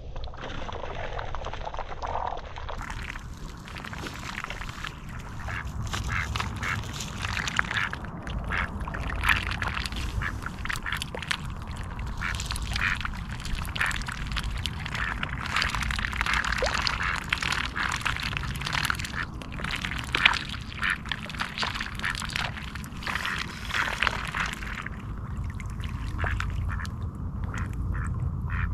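Mallard ducks quacking and dabbling with their bills at the water's edge, a dense run of short calls and splashy clicks that thins out near the end, over a steady low rumble.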